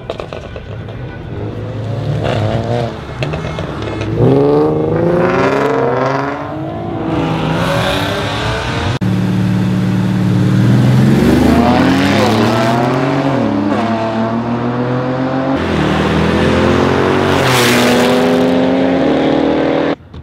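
Car engines revving hard, over and over, the pitch climbing and dropping with each rev, with a short burst of hiss near the end.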